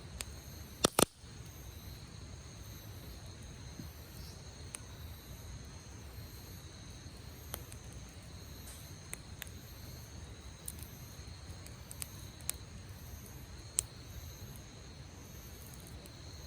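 Wood fire crackling with scattered sharp pops, the loudest a quick double pop about a second in, over insects chirping in a steady pulsing pattern.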